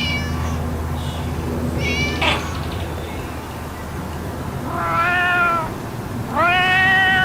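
Cat meowing: a short high call at the start, a sharp higher call about two seconds in, then two longer meows near the end, the last the loudest. A steady low hum runs underneath.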